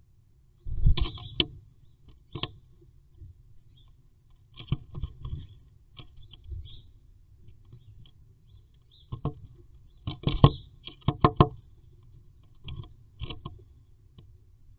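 Great tit's claws and beak scratching and tapping on the wooden nest box at the entrance hole, heard from inside the box: irregular clusters of sharp clicks and scrapes, the loudest about a second in and again around ten to eleven seconds in.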